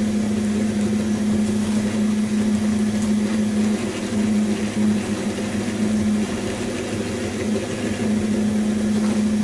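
West Bend stand mixer's motor running at a steady low hum, its beaters churning wet banana bread batter in a stainless steel bowl.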